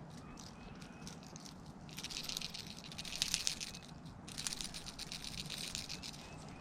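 Fishing reel clicking rapidly in two runs of about two seconds each, starting about two seconds in.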